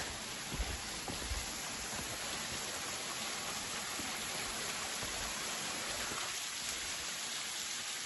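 Small waterfall splashing down a rock face onto stones, a steady rushing hiss of falling water.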